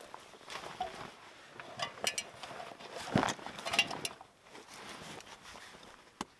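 Irregular rustling, scraping and knocks, busiest from about half a second to four seconds in, with the loudest knock around three seconds.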